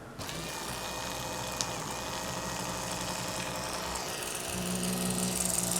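Saab 9000's Mark IV ABS pump electric motor switched on and running steadily on bench power; about four and a half seconds in its sound turns rougher, with a stronger low hum and more hiss. It doesn't sound good, which the owner puts down to the socket slipping over too far while the new bearing was pressed in.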